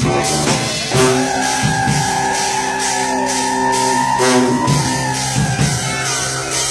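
Brass band of sousaphone, saxophone and trumpet playing with a drum kit. About a second in the horns stop their short rhythmic notes and hold a long chord over a steady drum beat, breaking it off briefly about four seconds in.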